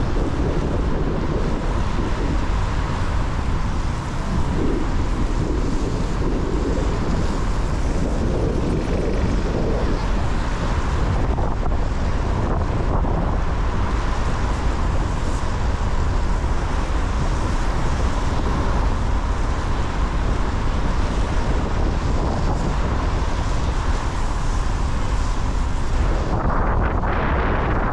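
A car driving on wet city streets: steady road noise with tyre hiss and wind buffeting the microphone, over a low rumble. The upper hiss thins out near the end.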